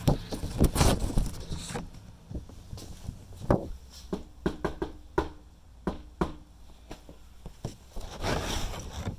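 Footsteps on a brick walkway, a series of irregular short taps, with rustling from the phone being handled.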